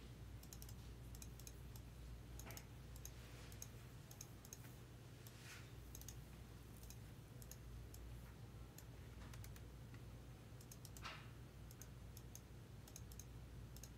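Faint, scattered clicks of a computer mouse and keyboard, over a low steady hum.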